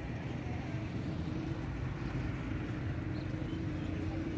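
Steady low engine hum with no distinct events.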